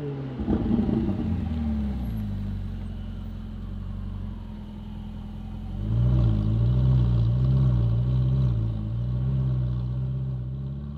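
Ferrari 488 GTB's twin-turbo V8 through an aftermarket titanium exhaust, the note dropping as the car slows, with a few sharp crackles about a second in. It then settles into a low, steady burble at walking pace, growing louder and wavering slightly about six seconds in.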